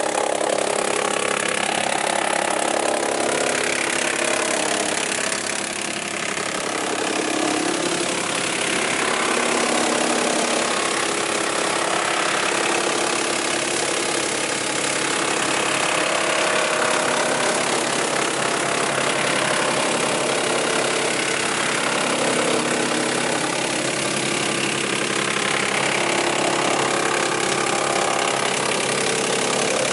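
ŻEFAM DDRBA 44 drum wood chipper running steadily while it chips a log, throwing out wood chips, with a brief dip in level about six seconds in.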